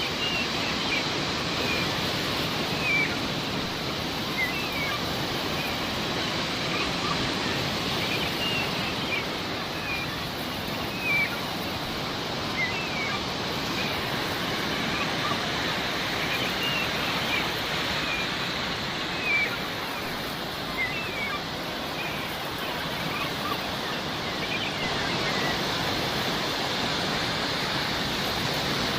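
Sea waves washing steadily, with seagulls giving many short, high calls scattered throughout.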